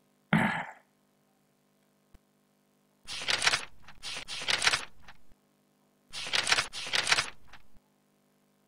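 A person coughing: a single cough just after the start, then two fits of several coughs each.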